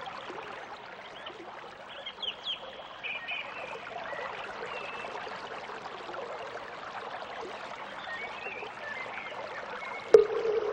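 Running water with birds chirping now and then. About ten seconds in, a sharp knock comes, and a steady mid-pitched tone begins.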